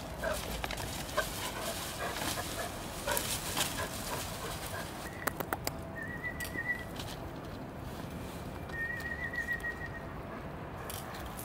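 A metal ladle clinking and scraping in an aluminium stockpot as food is scooped out for dogs, in scattered knocks through the first half. About six and nine seconds in come two short, high, trilling animal calls.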